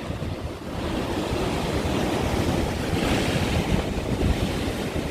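Sea surf washing against rocks, with strong wind buffeting the microphone in a low rumble; the hiss of the water swells about three seconds in.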